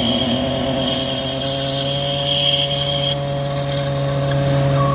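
Ford F-450's diesel V8 running a belt-driven hydraulic pump under load on a flow-and-pressure tester, with a steady noise from the pump's multi-groove drive belt slipping over its pulley at about 1400 psi. The mechanic puts the slip down to too little belt tension. The high hiss drops away about three seconds in.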